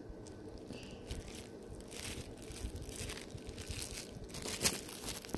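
Faint crinkling of plastic packaging being handled, with irregular small crackles and a louder one near the end.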